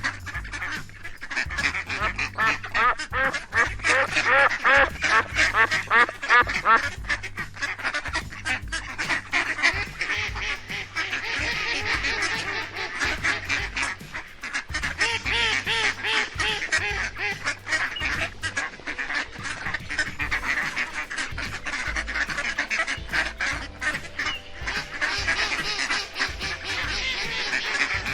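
Many ducks quacking, the calls dense and overlapping without pause.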